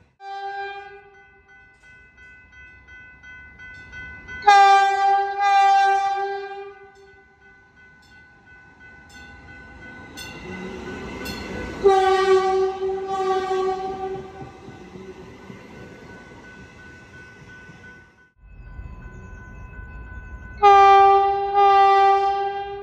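Horn of a Metrolink Arrow Stadler FLIRT diesel multiple unit, sounding one short blast and then three pairs of blasts on a single steady pitch. The middle pair comes as the train runs close past, over its rising running noise.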